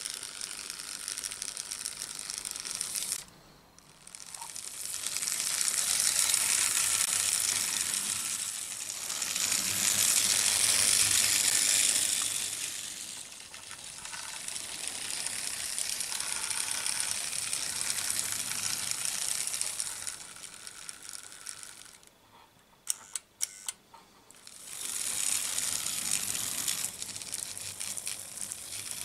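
Märklin H0 BR 81 tank locomotive running with a coach on metal M-track: a steady, rattling clatter of metal wheels and the small motor that swells and fades as the train passes. It drops away twice, with a few sharp clicks in the second lull.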